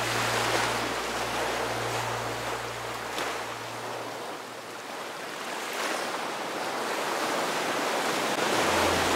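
Ocean surf: waves breaking and washing up a sandy beach, swelling in surges every few seconds.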